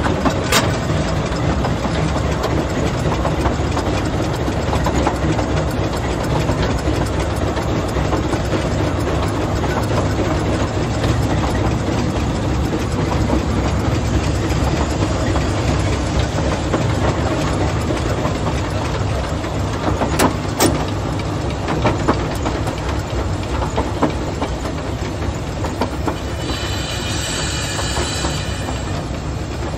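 Talyllyn Railway narrow-gauge train running along the track: a steady low rumble with occasional sharp clicks of the wheels over rail joints. A high-pitched squeal sounds for a couple of seconds near the end.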